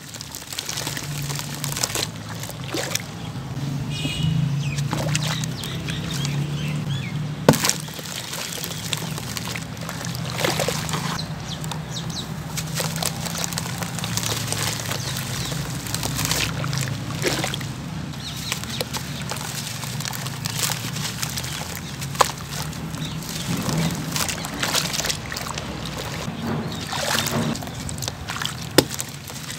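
Wet sand-cement lumps crushed by hand, the gritty crumbles pouring and splashing into foamy water in a plastic tub, with hands sloshing the water. Short crackles run throughout, with a few sharp knocks.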